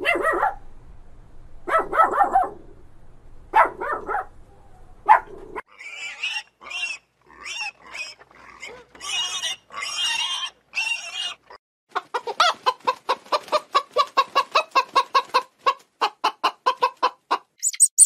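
Farm animal calls one after another: a few dog barks, then high pig squeals, then a long run of fast hen clucks, about four or five a second.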